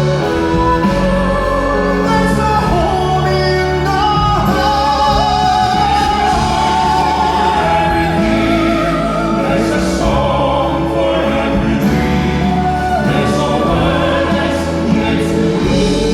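Live concert music: a male crossover vocal quartet singing in operatic style, voices held and overlapping, over amplified instrumental backing.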